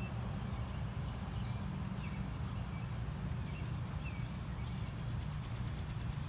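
An engine running steadily with a low, even hum, most likely the pressure-washing rig's engine and pump. Faint bird chirps come and go over it.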